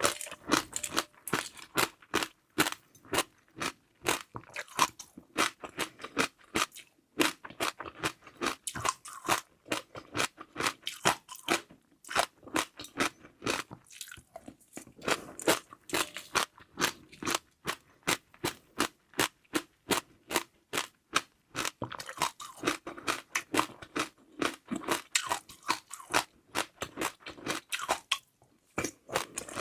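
A person chewing crunchy seaweed pearls close to the microphone: rapid, crackling crunches that run on with a few brief pauses.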